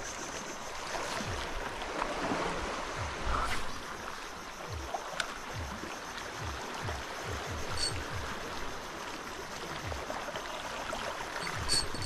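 Water lapping and sloshing in small, irregular splashes.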